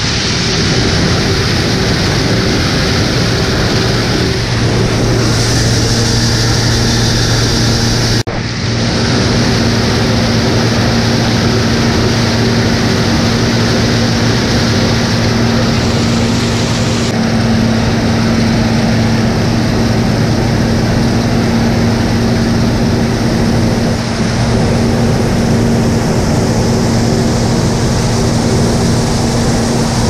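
John Deere combine harvesting standing corn, heard close up at the corn header: engine and header running steadily with a low hum over a dense mechanical hiss. A brief sudden drop about 8 seconds in.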